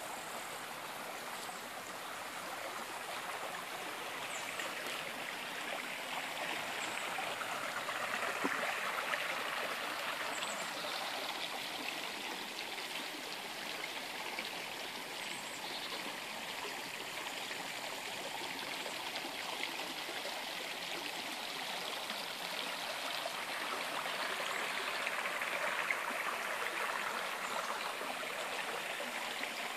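Stream flowing, a steady rushing and babbling of water that swells slightly about eight seconds in and again near the end.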